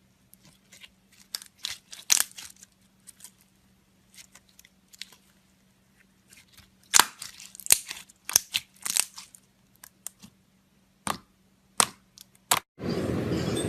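Clear slime being squeezed and poked, giving irregular sharp clicks and crackling pops, some loud, some faint. Near the end a loud steady noise suddenly cuts in over it.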